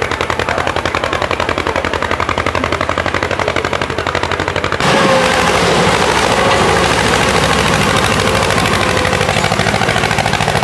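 Tractor engine running with fast, even exhaust pulses. About five seconds in it gets louder and harsher.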